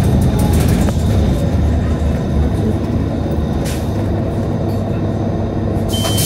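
Nova Bus LFS transit bus under way: a steady low engine and road rumble with scattered rattles. Near the end a short high beep sounds and a hiss starts up.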